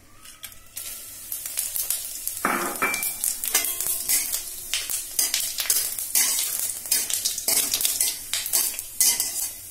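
Whole spices (bay leaves, dried red chilli, cinnamon, cardamom and cumin seeds) sizzling in hot mustard oil in a metal kadai, tempered for a curry. A flat metal spatula scrapes and stirs them against the pan many times over, with one fuller scrape about two and a half seconds in.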